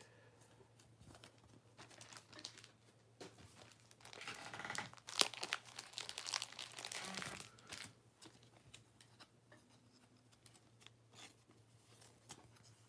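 Plastic cellophane wrapper of a trading-card pack crinkling and tearing as it is ripped open, loudest about four to eight seconds in.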